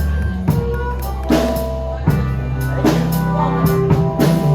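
Live blues band playing: drum kit hits with snare and bass drum over a bass guitar line, with sustained melodic notes from a lead instrument.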